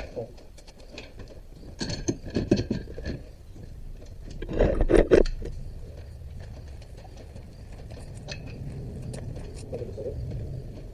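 Metal clanking and rattling as an ATV's rear end is jacked up and set on a jack stand, with a louder cluster of knocks about halfway through, then a low steady hum.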